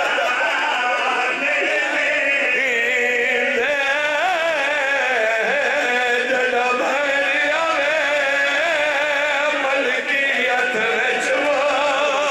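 Male voices singing a mournful majlis recitation in long, wavering, ornamented lines, amplified through a public-address system.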